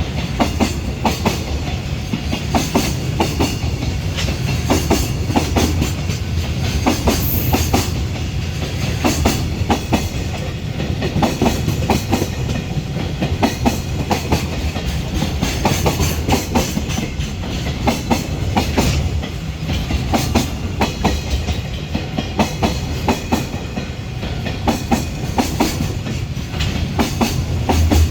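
JR Freight container train hauled by an EH500 electric locomotive rolling past, its wheels clattering over the rail joints in a continuous run of rapid clicks over a steady rumble.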